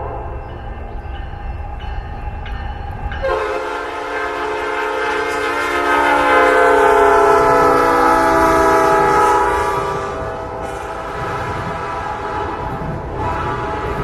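A Nathan Airchime P5 five-chime locomotive horn sounds a chord over the low rumble of a moving train. A fresh, louder blast starts about three seconds in, and its pitch sags downward as it swells. It eases off about ten seconds in.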